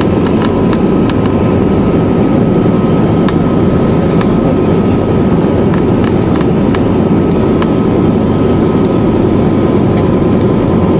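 Cabin noise of a Lisunov Li-2 on the ground after landing: its nine-cylinder radial engines running at low power, a loud steady drone with a faint steady whine above it and occasional light clicks.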